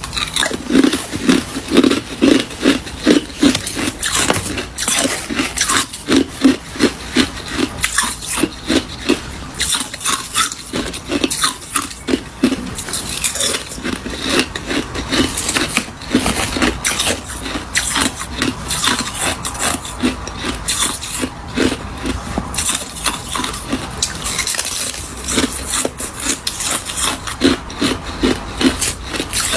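Hard ice, possibly freezer frost, being crunched and chewed close to the microphone: rapid, irregular crunching several times a second, running on without a pause.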